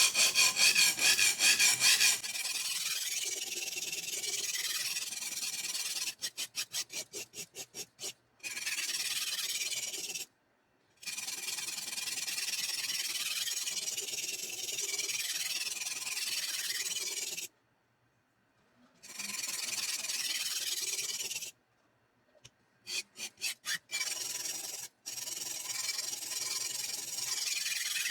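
Shun Sora chef's knife blade scraping back and forth on an abrasive sharpening surface to grind out edge chips. It comes in several stretches of steady scraping that start and stop abruptly, with separate quick strokes, about six a second, twice along the way.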